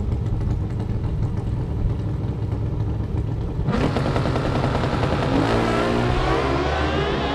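Three Pro Stock Motorcycle drag bikes running at the starting line. About four seconds in they launch together, and their engines rise in pitch as they accelerate down the drag strip.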